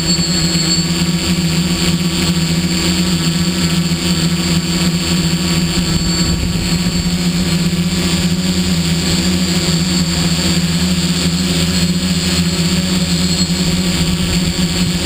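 Hexacopter's six Tiger MT2814 brushless motors and 11-inch carbon propellers running steadily in flight, a constant hum heard from a camera mounted on the frame. A thin high motor whine above the hum fades about a second in.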